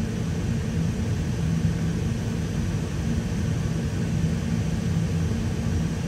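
Semi truck's engine running, a steady low rumble with a faint hum, heard inside the cab.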